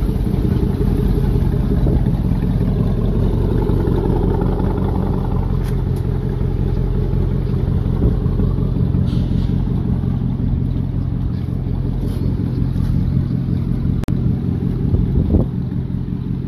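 Pickup truck's engine idling steadily, with a few faint clicks over it.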